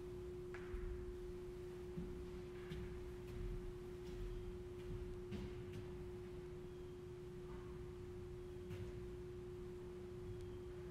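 A steady hum at one unchanging pitch, like a pure tone, with a few faint scattered clicks and knocks.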